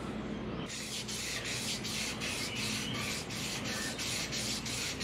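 800-grit abrasive paper wrapped around a Chevy 5.7 Vortec crankshaft journal, pulled back and forth with a string, rasping in quick even strokes of about three to four a second from about a second in: cleaning up the crank journals before new bearings go on.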